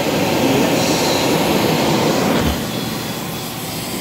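Commercial carpet extractor running on carpet while it sprays, with a loud, steady motor noise. About two and a half seconds in the sound drops somewhat with a low knock, and the machine keeps running more quietly.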